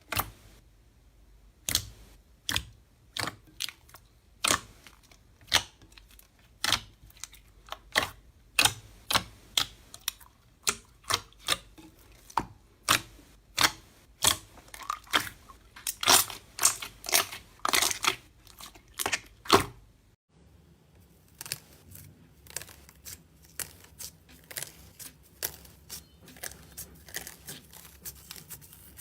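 Slime being squeezed and poked, making short sharp clicks and pops about one or two a second. About twenty seconds in it changes to softer, quicker clicks over a low steady hum.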